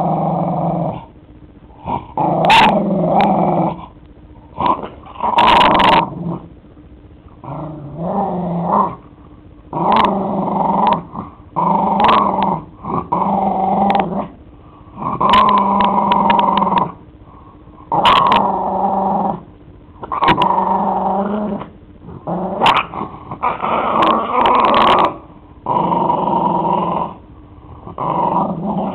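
Puggle (pug–beagle mix) growling in repeated bouts of a second or so, about a dozen times, guarding a chew ball with a treat inside while a hand touches him.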